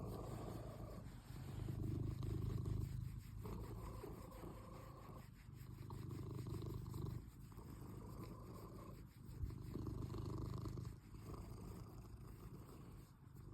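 Domestic cat purring steadily close to the microphone, swelling and easing every few seconds. It is the purr of a contented cat.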